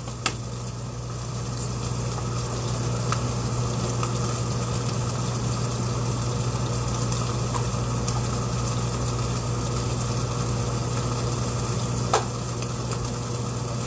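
Beef bulgogi frying in a pan: a steady sizzle that builds over the first couple of seconds, over a constant low hum. There are a few light clicks, the clearest near the end.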